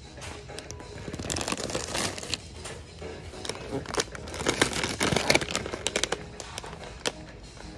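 Plastic snack bags crinkling as they are picked up and handled, in irregular bursts of rustling.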